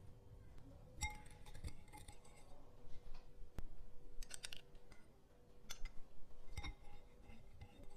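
Metal spoon clinking and scraping against a small glass bowl while sweetened condensed milk is spooned out, with lighter taps against a ceramic bowl. The strikes come one at a time with a short ring, plus a quick run of clinks about four seconds in.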